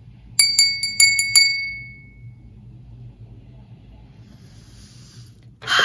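Small cut-glass hand bell shaken: about six quick, bright rings in a second, its high clear tone dying away over the following second.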